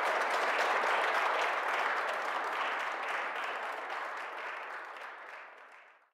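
Audience applauding, a dense patter of many hands clapping that gradually dies away over the last few seconds.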